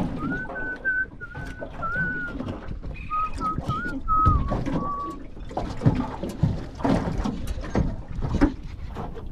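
Small boat knocking and slapping about on choppy water, with a thin, wavering whistle that comes in two stretches over the first five seconds.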